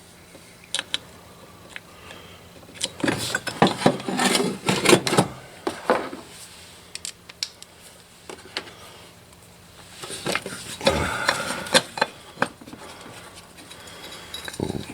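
Hand tools and metal parts clinking and rattling during work on a truck's 4x4 vacuum actuator, with scattered sharp clicks and two busier spells of rattling, a few seconds in and again past the middle.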